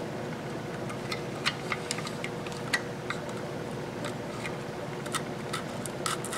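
Small, irregular plastic clicks as the snap-fit plastic cover of a photo-eye sensor is pried loose by hand, over a steady background hum.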